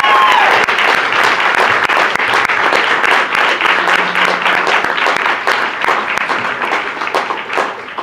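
Audience applauding, thinning out near the end into scattered separate claps, with a whooping cheer fading out right at the start.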